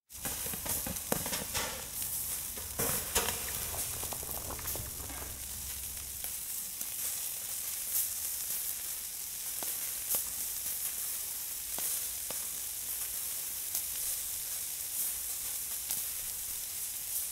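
Arrosticini, small meat skewers, sizzling on a grill: a steady frying hiss with scattered crackles and pops, busier in the first few seconds.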